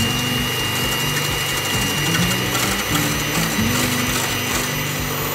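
Electric hand mixer with whisk beaters running at a steady speed in a stainless steel bowl, a constant high motor whine, whipping egg whites until they foam and stiffen.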